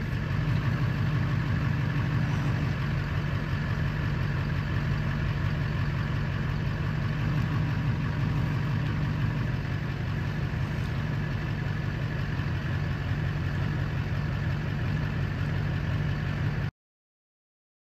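Engine idling steadily with an even, unchanging hum; it cuts off suddenly near the end.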